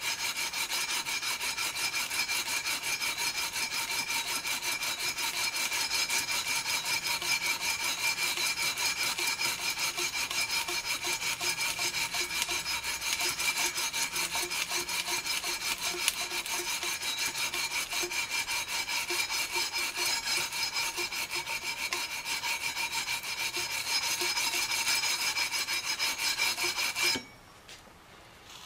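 Sandpaper on a long aluminium fret-leveling beam being rubbed back and forth along the EVO gold frets of a guitar neck, a continuous run of quick sanding strokes that stops suddenly near the end. This is the fret-leveling stage of a refret, grinding the high frets down flat.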